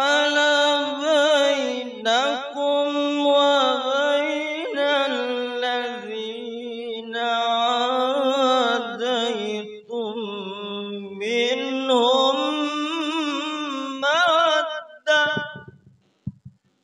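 A male qari recites the Qur'an in the melodic tilawah (qiroat) style, amplified through a sound system. He sings long held phrases with wavering, ornamented pitch, pausing briefly twice, and his voice stops shortly before the end.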